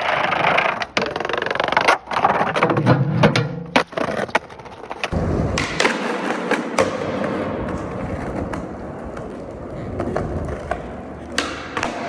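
Skateboard wheels rolling over street pavement, broken by sharp clacks of the board hitting the ground several times, the pops and landings of tricks.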